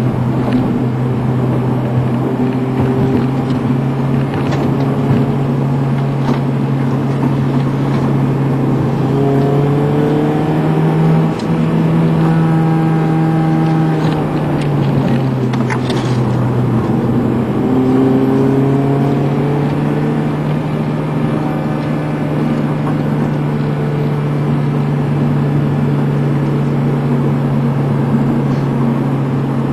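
Car engine running steadily, heard from inside the cabin while driving, over road and tyre noise. Around the middle the engine note rises and falls in pitch a couple of times as the car speeds up and eases off.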